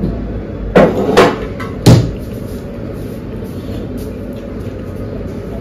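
Metal dishes clanking as a steel bowl, brass bowl and spoon are stacked together on a plate. There are three clanks in about a second, the last the loudest, over a steady background hum.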